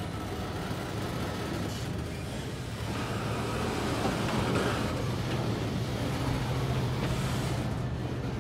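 Freight cars rolling slowly along yard track, steel wheels on the rails, over the steady low drone of an EMD SD40 diesel locomotive working the cut. The sound grows somewhat louder a few seconds in.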